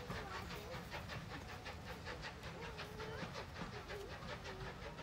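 Steam locomotive working away up the line, its exhaust beats coming rapid and even at about six a second.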